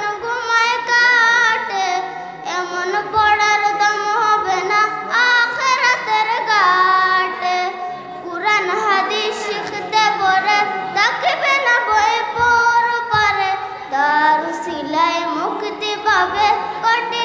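A girl singing a Bengali Islamic song solo into a microphone, in long phrases with wavering, ornamented held notes.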